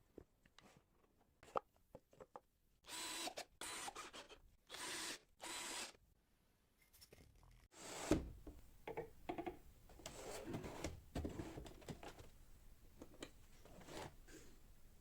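Tools being handled on wood: scattered clicks and knocks, three short scraping strokes, and one loud thump a little past halfway, followed by irregular knocking and rubbing.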